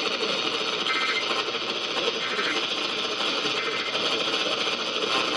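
Steady hiss of radio static from a receiver.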